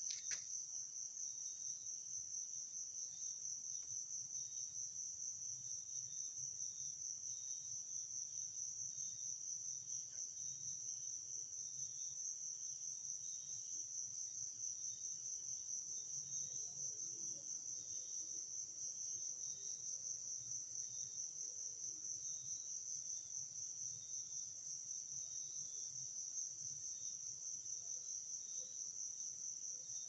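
Crickets trilling in a steady, continuous high-pitched chorus, with one short click at the very start.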